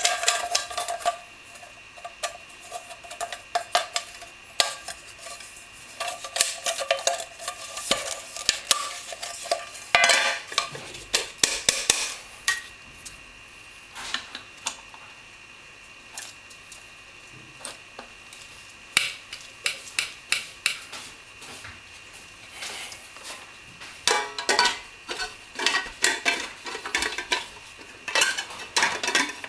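Stainless steel juicer parts clinking and clattering as they are handled and fitted together: many short metallic knocks and scrapes with a light ring, coming in bursts, with a quieter spell midway and a busy run near the end.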